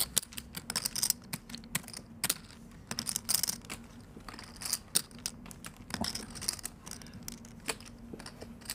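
Poker chips clicking and clacking as a player fidgets with a stack of chips at the table: irregular sharp clicks, with a few louder clacks.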